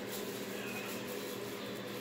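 Steady room tone: an even hiss with a low, constant hum, like a fan or air conditioning running.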